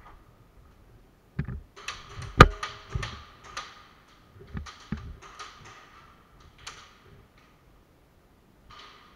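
Airsoft gunfire in a plywood-walled indoor arena: a string of sharp snaps and knocks, with BBs striking the wooden walls. The loudest crack comes about two and a half seconds in, with a hissing crackle between the shots, and it dies down after about seven seconds.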